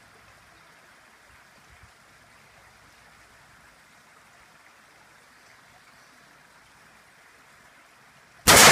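Faint steady outdoor hiss, then near the end one sudden, very loud blast from an M4 rifle shot setting off a Tannerite charge, echoing and fading slowly.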